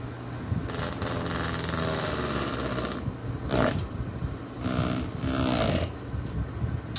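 Samson 10-inch fan's spinning rubber blades slapping rapidly against a hand held into them, a fast rattling buzz over the steady hum of the fan motor. The rattling comes in three stretches: from about a second in for two seconds, briefly halfway through, and again for over a second near the end.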